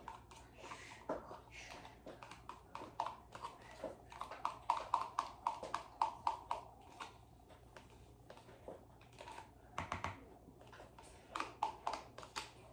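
Light clicks and taps of a utensil against a bowl, in an irregular run of a few a second that is thickest in the middle.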